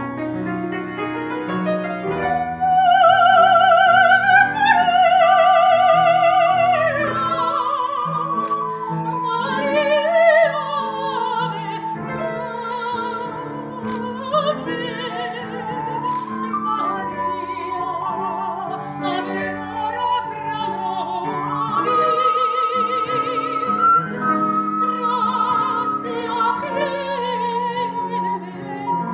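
A woman singing in operatic style with strong vibrato, with an ocarina playing a melody alongside her over low sustained accompaniment notes. The singing swells loudest a few seconds in.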